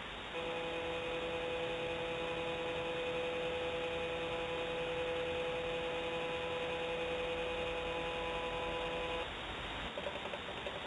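Pan-tilt motor of a remote-controlled nest camera whining with a steady hum of several tones as the camera pans, starting about half a second in and stopping about nine seconds in, over a steady hiss.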